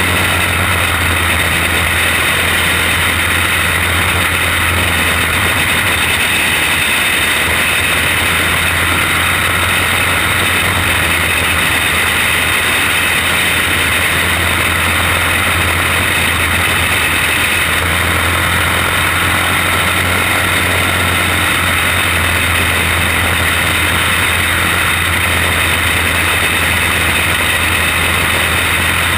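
Racing kart engine running hard at race speed, heard from a camera mounted on the kart. It drones loud and steady with little change in pitch, over a dense rush of noise, and the other kart running just ahead adds its own engine sound.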